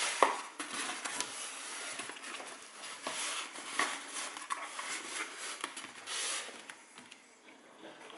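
Handling noise as Eachine VR D2 box goggles are fitted onto a foam mannequin head: the strap and plastic shell rubbing and scraping on the foam, with a few light knocks. The rustling dies down near the end.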